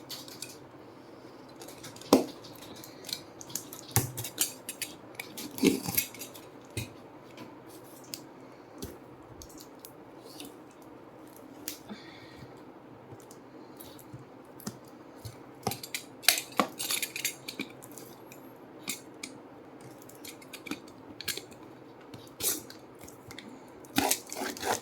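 A jewellery parcel being opened by hand: irregular clicks, taps and crinkling of its packaging, with a few louder sharp knocks.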